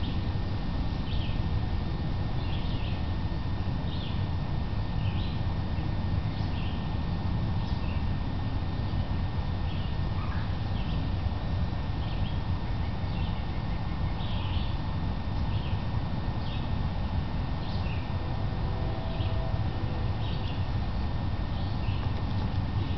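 A bird chirping over and over, short high calls coming a little more than once a second, over a steady low rumble.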